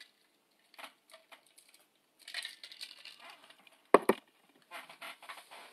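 Handling noises from a clear plastic drinking cup: crinkling and rustling, then one sharp knock about four seconds in as it is set down on a hard surface, followed by a little more rustling.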